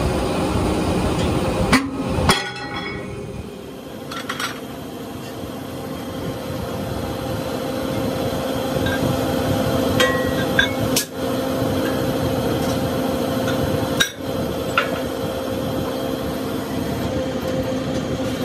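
Steady hum of a metal-forming press's motor, with a few sharp metal clanks and knocks spread through as steel wheel discs are handled on the press bed and under the ram. One clank about two seconds in rings on briefly.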